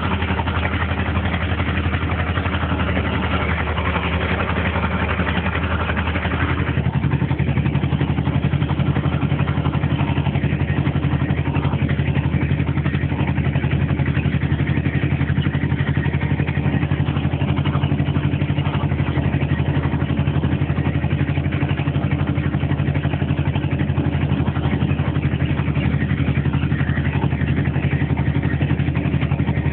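The two-cylinder air-cooled diesel engine of a VTZ T-25A 'Vladimirec' tractor runs steadily, heard close up from on the tractor while it pulls a manure spreader across a field. About six seconds in, the engine note shifts lower and gets a little louder, then holds steady.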